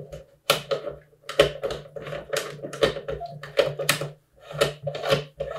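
A camera's metal body being screwed by hand onto a filter wheel's threaded adapter: irregular small metallic clicks and scrapes, two or three a second.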